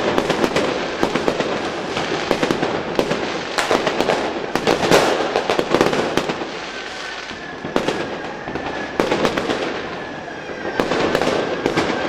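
Fireworks going off: a rapid, dense string of bangs and crackling. A thin steady whistle runs under it through the second half.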